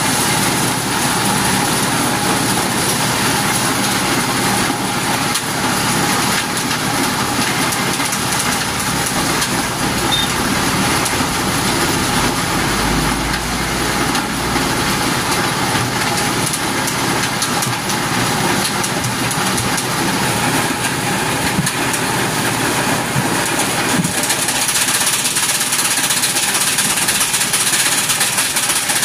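Engine-driven corn sheller running steadily: a loud, continuous mechanical din.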